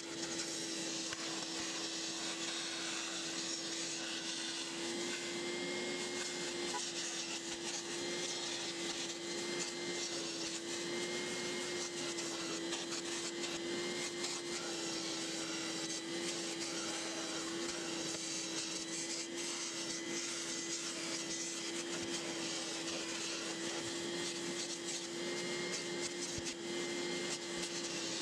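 Carpet extractor running with steady suction as its clear hand wand is drawn over automotive floor carpet, pulling up shampoo water. It is a continuous hum of nearly constant pitch over a hissing rush of air.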